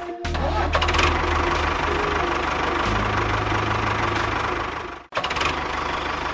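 Engine running steadily with a low, even drone. It breaks off abruptly twice, about a quarter second in and again about five seconds in, shifting slightly in pitch after each break.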